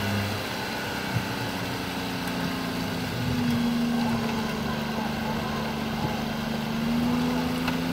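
Suzuki SJ-series 4x4 running steadily while it is winched slowly forward, a steady mechanical hum whose pitch steps up slightly about three seconds in and again near the end, as the pull takes load.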